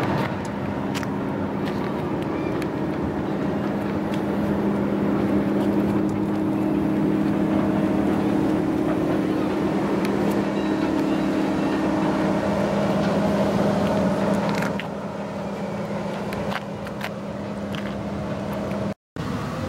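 A steady low engine hum, like an idling motor vehicle, with a few faint clicks. It drops in level about fifteen seconds in and cuts out briefly near the end.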